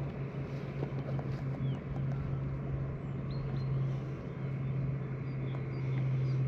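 A steady low mechanical hum with outdoor noise over it, and a few faint high chirps.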